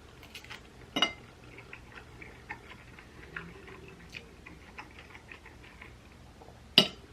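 Eating with cutlery: scattered small clicks and taps of a fork against a plate, with a sharper clink about a second in and another near the end.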